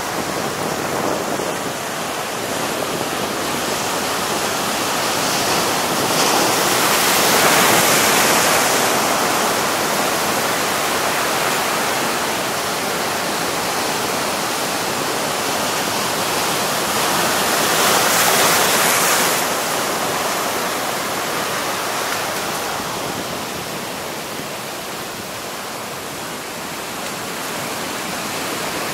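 Heavy sea surf breaking and washing over shore rocks, a continuous rushing wash that swells louder twice as bigger waves come in.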